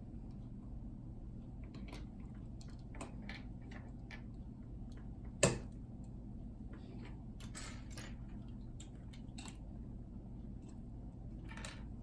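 Plastic LEGO pieces being handled and pressed together: scattered small clicks and rattles, with one sharp, loud click about five and a half seconds in.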